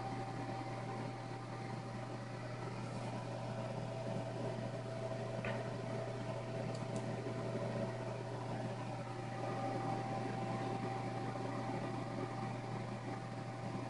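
Steady low machine hum with a thin high tone running through it, with one faint click about five and a half seconds in.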